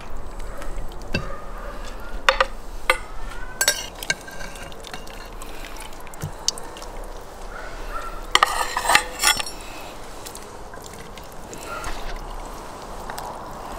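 Metal skimmer clinking and scraping against the rim of a metal pot while pieces of boiled fish are lifted out of the broth. A few sharp clinks come about two to four seconds in, and a quick cluster of them comes about eight to nine seconds in.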